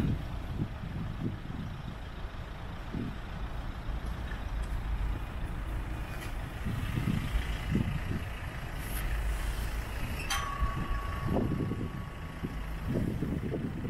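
Low, uneven rumble of traffic and engines. About ten seconds in there is a click, followed by a steady high tone lasting about two seconds.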